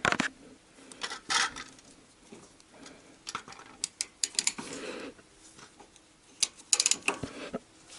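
Hand ratchet with a long socket and extension clicking in short runs as it turns a nut off the sump guard bracket stud, the busiest run near the end. The WD-40-soaked nut has broken free and turns fairly easily.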